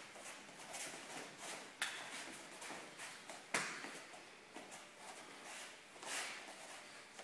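Clothed arms rubbing and smacking against each other and feet shuffling on a gym mat during Wing Chun chi sau (sticky hands) drilling: soft, irregular swishing, with two sharp smacks about two seconds in and about three and a half seconds in.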